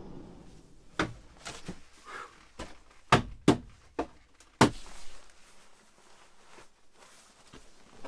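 Heavy ski boots knocking and thudding on a van's metal entry step and wooden floor as someone climbs in and sets gear down: five or six sharp knocks in the first five seconds, the loudest about three and four and a half seconds in, then lighter shuffling.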